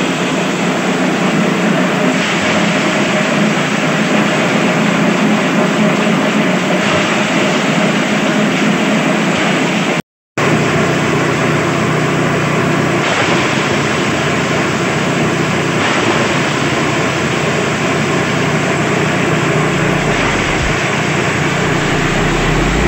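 Shredder-type livestock fodder chopper running steadily while it cuts green fodder: a loud, even mechanical noise with a steady hum under it. The sound cuts out for a moment about ten seconds in, then carries on unchanged.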